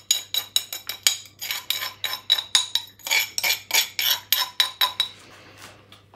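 Ground spice being knocked and scraped out of a pestle and mortar into a bowl: a quick run of ringing clinks, about four a second, that stops about five seconds in.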